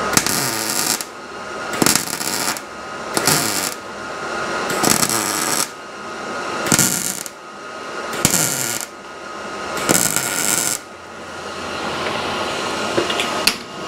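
Welder laying a run of short stitch welds on car sheet metal: about seven crackling bursts, each half a second to a second long and cut off sharply, ending about eleven seconds in.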